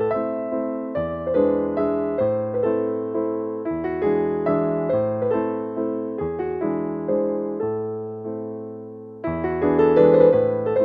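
Background piano music: a slow tune of struck notes and chords that ring and fade, changing about once a second.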